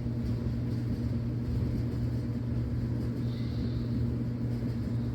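A steady low hum with a constant low-pitched tone, unchanging throughout.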